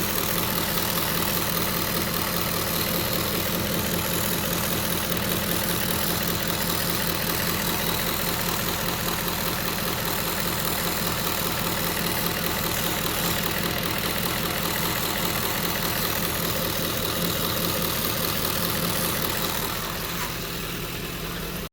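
Ford 5.4L Triton V8 in a 2010 Expedition idling steadily, with a buzzing from the driver's side bank that the owner has not been able to identify. It drops a little in level near the end, then cuts off suddenly.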